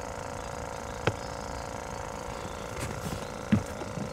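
A steady hum with several short knocks, the loudest about three and a half seconds in.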